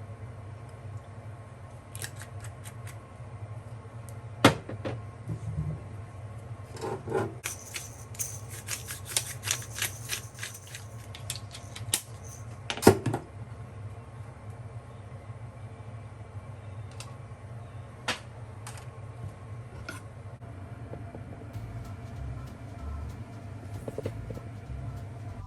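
Cookware and utensil handling: scattered clinks and taps of metal against dishes, two sharper knocks about four and thirteen seconds in, and a scratchy stretch of scraping around the middle, over a steady low hum.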